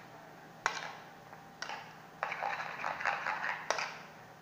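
A utensil stirring and beating an egg, okra and chili mixture in a white ceramic bowl: sharp clinks against the bowl about a second apart, with a stretch of rapid clattering and scraping in the middle.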